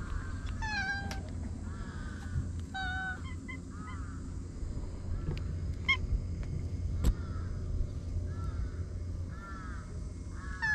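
A cat meowing a couple of times near the start, while birds call throughout in short repeated calls, about one or two a second. A sharp click sounds about seven seconds in.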